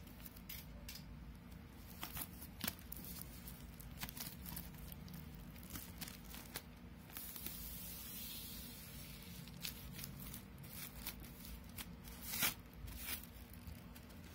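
Plastic shrink wrap being torn and peeled off a cardboard album box: scattered sharp crinkles and crackles, a longer rasping stretch around the middle, and the loudest crackle near the end, over a low steady hum.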